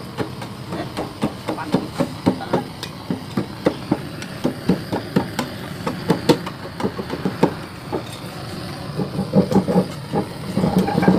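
Hand scrapers scraping and chipping torch-softened body filler and paint off a steel motorcycle fuel tank, in quick irregular strokes about two or three a second, growing denser and louder near the end.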